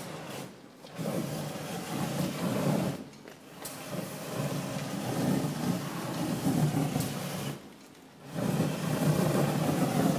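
Large fire roaring in stretches of a few seconds, each broken off by a sudden short lull.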